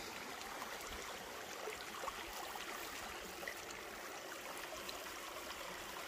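Shallow alpine mountain stream running steadily over rocks: an even rush of flowing water.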